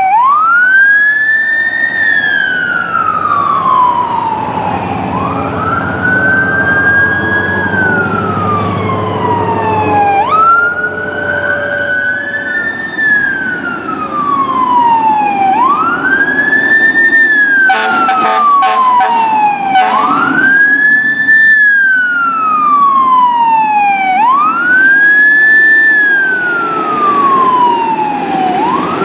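Fire engine sirens on the wail, each cycle rising quickly and then sliding slowly down, repeating about every three and a half seconds. A truck's engine rumbles underneath as the rigs pass, and a quick run of short horn blasts comes a little past halfway.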